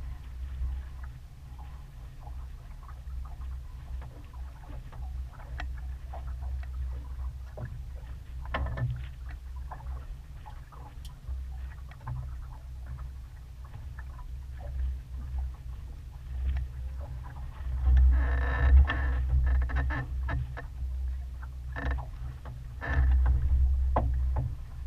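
Sailboat under sail: a steady low rumble of wind on the microphone and water washing along the hull, with scattered short clicks and knocks. The rumble swells louder about three-quarters of the way through and again near the end.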